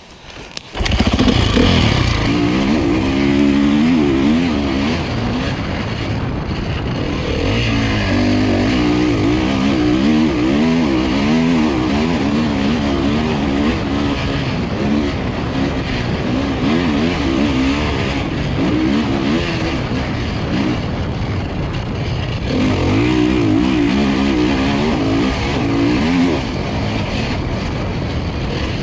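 Honda CRF450 motocross bike's single-cylinder four-stroke engine being ridden hard, opening up about a second in and then rising and falling in pitch with the throttle and gear changes.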